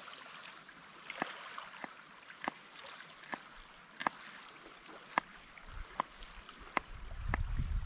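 Knife cutting vegetables on a small wooden board: a series of short, sharp taps at uneven intervals, roughly one a second. Wind on the microphone rises near the end.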